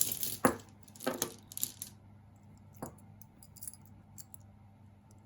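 Metal and bead jewelry clinking and rattling as pieces are picked out of a pile, with a few louder clatters in the first two seconds, then only faint scattered ticks.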